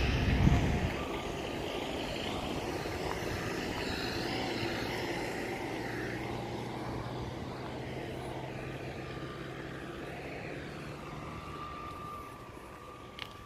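Outdoor traffic noise: a steady motor-vehicle drone that slowly fades, with a burst of wind rumble on the microphone in the first second.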